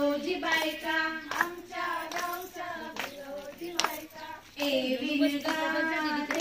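Group of women singing a Marathi bhondla folk song together while clapping in time. The singing dips briefly about four seconds in, then comes back.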